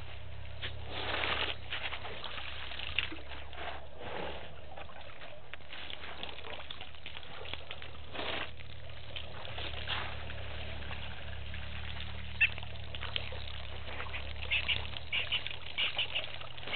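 African elephants drinking at a waterhole: water splashing and dripping as they draw it up in their trunks and spray it into their mouths. A steady low hum runs underneath, and a run of short sharp sounds comes near the end.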